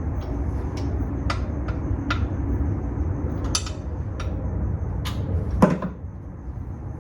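Scattered metallic clinks and taps of a wrench and steel working at a car engine's crankshaft pulley bolt, with one heavier knock about five and a half seconds in, over a steady low background rumble.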